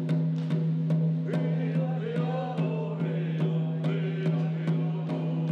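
Background music: a steady drum beat over a sustained low drone, with a wavering sung line in the middle.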